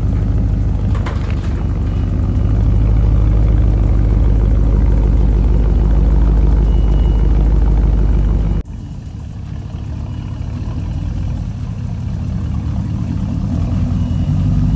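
Porsche Cayenne engine idling through a newly made side-exit exhaust with the stock muffler removed, a steady low engine note, quite a bit louder than stock. A little over halfway through it cuts suddenly to a quieter take of the engine still running, which slowly grows louder.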